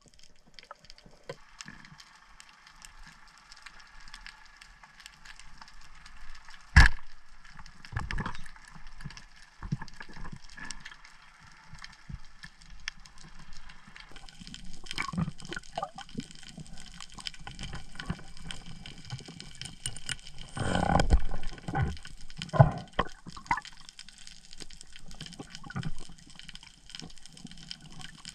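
Underwater ambience picked up by a diver's camera: a faint steady hiss with scattered clicks and knocks. There is one sharp knock about seven seconds in, and a busier stretch of louder knocks and gurgling water about halfway through.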